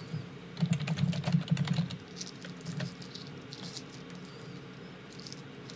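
Typing on a computer keyboard: a quick run of key clicks for the first few seconds, thinning out to a few scattered taps.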